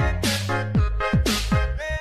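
Electronic music with a steady beat: deep kick drums sliding down in pitch, sharp snare or clap hits, and bending synth tones over a sustained bass.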